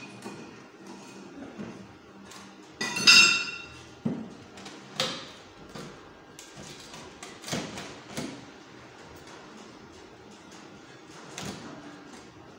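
Steel parts knocked and set down on a wooden workbench: a ringing metal clank about three seconds in, then scattered sharp knocks and clinks.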